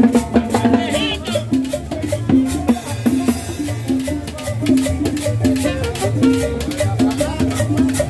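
Live Latin dance band playing with a steady beat: plucked upright bass, horns and percussion with a shaker.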